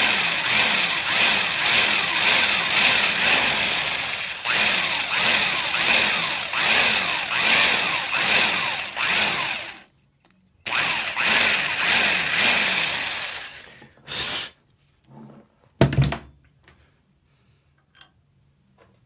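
Electric drill boring a screw hole into the wooden fore end of a Gewehr 98 rifle stock, running steadily with a pulsing whir for about ten seconds, stopping briefly, then running again for about three seconds and once more in a short burst. A single sharp knock follows about sixteen seconds in, then a few light clicks.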